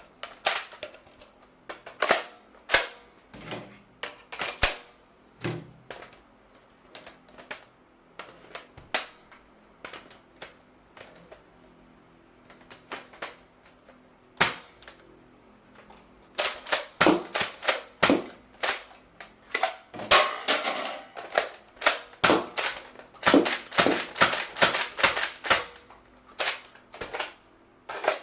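Sharp plastic clicks and clacks of a Nerf Elite 2.0 Echo blaster being reloaded, scattered at first, then coming in quick runs over the second half.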